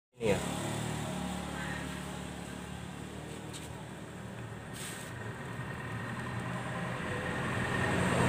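A motor vehicle engine running steadily, growing louder toward the end.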